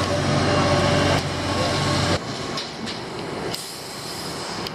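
Diesel engines of heavy construction machinery, an excavator and dump truck, running during loading. A low drone drops away suddenly about two seconds in, and a few sharp clicks follow.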